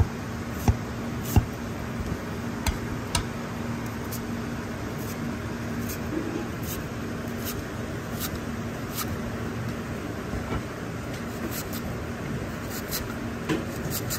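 Chinese cleaver slicing ginger on a plastic cutting board: sharp, irregular taps of the blade striking the board, about one or two a second, over a steady kitchen hum.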